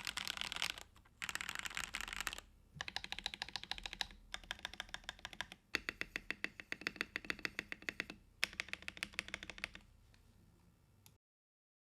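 Typing on an RK84 mechanical keyboard with lubed Zuoce PP White switches, XDA keycaps and a tape mod: fast runs of key presses in bursts with short pauses, stopping about ten seconds in.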